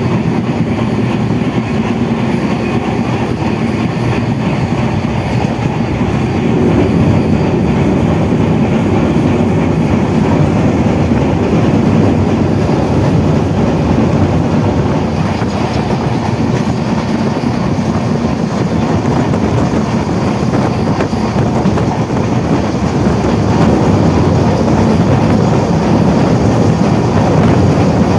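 Sundarban Express passenger train running at speed, heard on board: a loud, steady noise of its wheels running on the rails.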